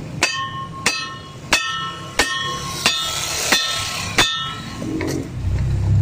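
Hammer blows on steel, driving a driveshaft center support (carrier) bearing home onto the shaft: seven ringing metallic strikes about every two-thirds of a second, then a lighter one about five seconds in.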